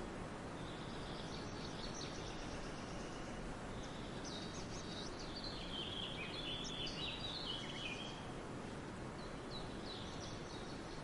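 Birds singing in several short phrases of quick, high chirping notes, the busiest run about halfway through, over a steady hiss of background noise.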